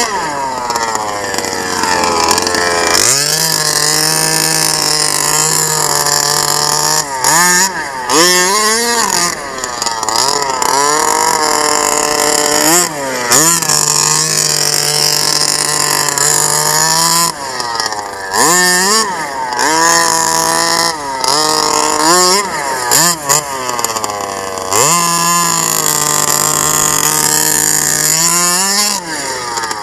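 Small two-stroke gasoline engine of a 1/5-scale RC truck, revved up and down in repeated bursts as it is driven, with steady stretches at part throttle between them.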